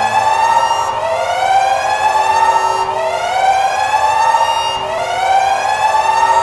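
Alarm siren wailing in a repeating cycle: the pitch sweeps up and then levels off, restarting about every two seconds, over a steady underlying tone.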